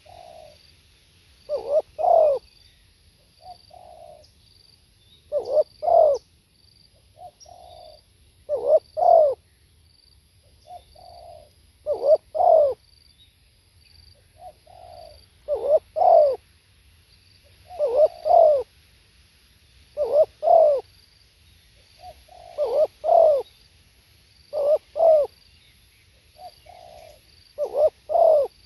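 Spotted dove cooing its territorial song, one phrase about every three seconds: a soft lead note followed by two loud, rolling coos. Faint high chirps of other birds can be heard behind it.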